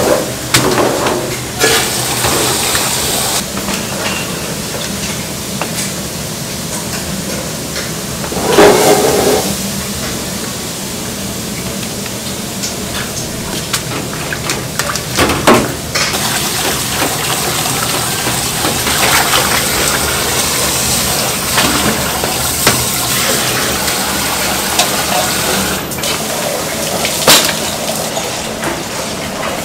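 Water running and splashing steadily as boiled thin noodles are drained and rinsed in a wire-mesh strainer over a steel sink, with a few louder splashes and knocks along the way.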